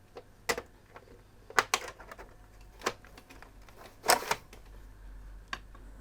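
Plastic clicks and knocks from a PlayStation 3 Super Slim's casing as its lid is handled and pushed back on: about six separate sharp clicks, the loudest a quick pair about four seconds in.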